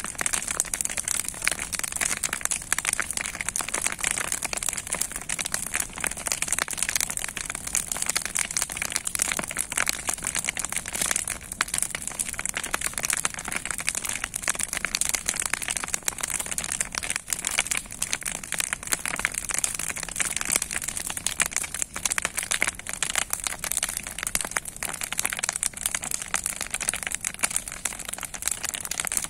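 Bonfire of old scrap wood planks burning fiercely, with dense, continuous crackling.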